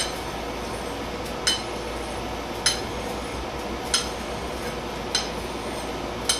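Steel blade clinking against a sharpening stone as it is laid down for each stroke of convex-edge sharpening, six sharp ringing clinks spaced a little over a second apart.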